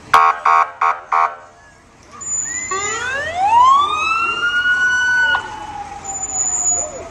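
Fire truck sounding four short horn blasts, then its siren winding up in a rising wail, holding, and slowly falling away in the last couple of seconds.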